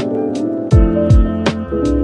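Background music with a steady beat: kick drum and crisp high percussion over sustained chords.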